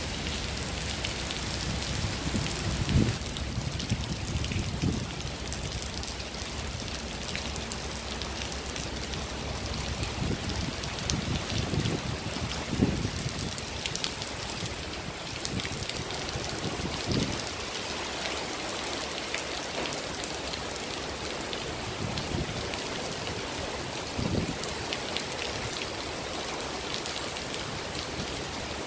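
Heavy rain falling steadily on paving and a shelter roof, with runoff pouring off the roof edge and splashing onto the ground. A few short low thumps break through now and then.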